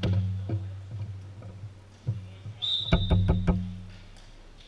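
A volleyball thudding off hands and the hardwood floor, each hit echoing with a low boom in a large gymnasium: a few spaced thuds, then a quick run of about five near the middle. Just before that run comes a short high squeak.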